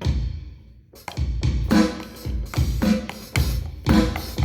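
Roland V-Drums electronic drum kit playing one of its preset demo drum patterns through its sound module. A hit rings out, then after a short break a busy, steady beat of drum strikes starts about a second in.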